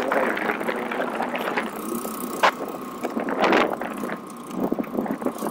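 Small 100cc motorcycle running at riding speed, heard with road and wind noise on the rider's phone microphone. A couple of sharp rattles or knocks come a little past halfway.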